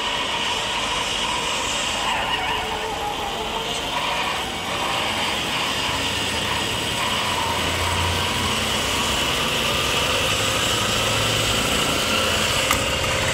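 Racing-truck engine sound effect running steadily, with a tone that rises slowly over the last few seconds and a short click near the end.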